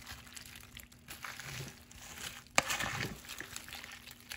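Food being stirred with a silicone spatula in a slow cooker lined with a plastic liner: the liner crinkles and the corn cobs and sausage shift in the broth, with one sharp knock about two and a half seconds in.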